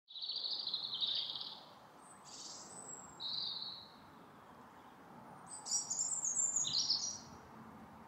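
Wild birds singing and calling in several short, high-pitched phrases: a trill at the start, a thin high note, a brief phrase, then a rapid run of notes stepping downward near the end, over faint steady background noise.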